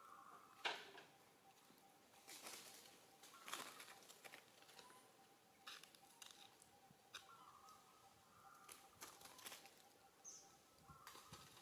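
Near silence: faint outdoor ambience with a steady faint high tone, soft scattered rustles and clicks, and a few brief faint high notes.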